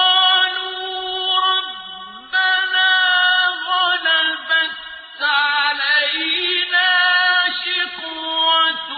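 Qur'anic recitation in Arabic: a single voice chanting in long, drawn-out melodic phrases with ornamented, wavering held notes, broken by a few short pauses for breath.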